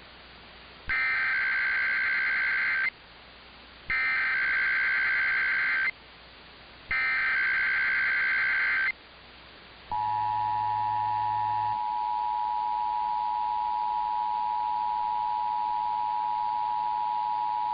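Emergency Alert System test signal: three two-second bursts of warbling SAME digital header data with short gaps between them, then, about ten seconds in, the steady two-tone EAS attention signal held for about eight seconds. The sequence marks the start of a coordinated monthly test broadcast.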